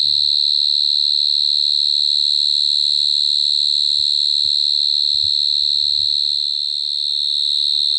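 A night insect very close by, singing one shrill, unbroken, high-pitched tone that holds steady throughout, with a few faint knocks in the middle.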